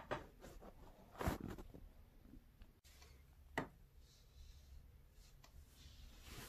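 Quiet handling noise: soft rustling with a few light clicks and taps, the loudest about a second in and a sharp click a little past the middle.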